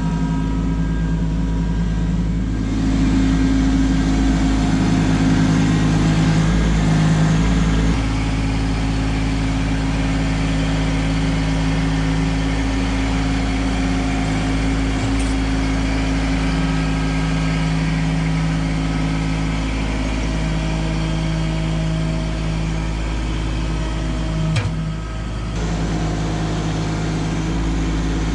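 Kubota LX2610 compact tractor's three-cylinder diesel engine running steadily while it grades soil and gravel with a box blade. Its tone changes abruptly about eight seconds in and again near the end.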